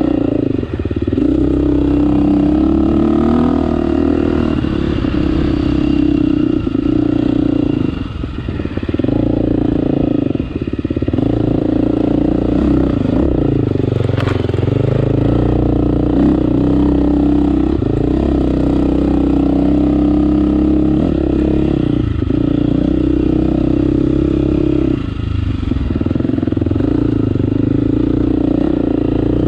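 2018 KTM 350 XC-F's single-cylinder four-stroke engine running under constantly changing throttle as the dirt bike is ridden over a rocky trail, its pitch rising and falling as the throttle opens and closes, easing off briefly twice. One sharp click about halfway through.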